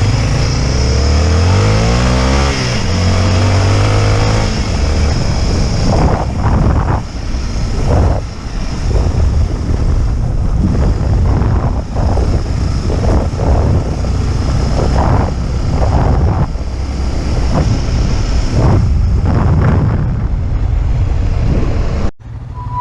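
Motorcycle engine pulling away, its pitch rising through the first few seconds, then running unevenly on a rough track with repeated jolts and surges.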